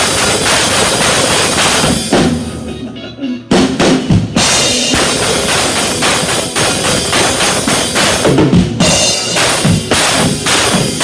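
Instrumental passage of a country band's song with the drum kit to the fore. The mix drops away about two seconds in, then drum hits bring the full band back.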